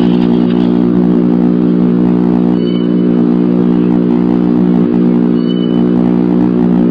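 Steady, loud electrical hum with a buzzing edge that never changes in pitch or level. Two brief high peeps come through, one near the middle and one about five and a half seconds in.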